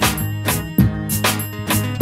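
Background music with a steady beat, about two strikes a second, over sustained pitched notes.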